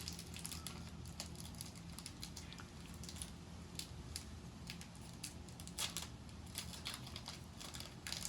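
Pokémon trading cards and their foil booster pack being handled: scattered light crinkles and clicks, a little louder about six seconds in and near the end, over a steady low hum.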